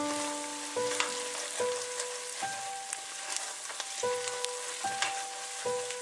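Chopped onions sizzling in butter in a stainless steel pot as a plastic slotted spoon stirs them, with small scrapes and clicks against the pot. Background music plays over it: a melody of single held notes, a new one about every 0.8 seconds.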